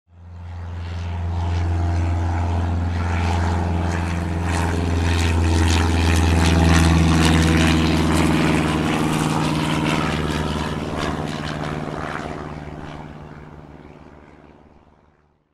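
Single-engine propeller airplane flying past: a steady engine and propeller drone that swells to its loudest about halfway through, then fades away near the end.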